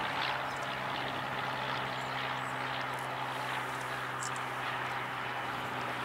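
Airbus Beluga XL's Rolls-Royce Trent 700 turbofans running at low taxi power as the aircraft turns on the ground: a steady jet hiss over a constant low hum.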